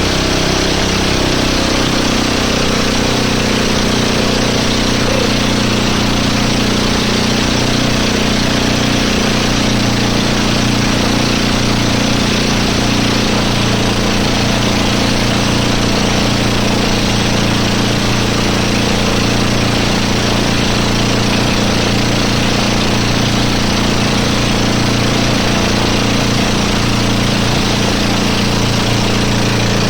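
Motorboat engine running steadily under load over a dense hiss of wind and water. The engine note drops slightly in the first second or two, then holds steady.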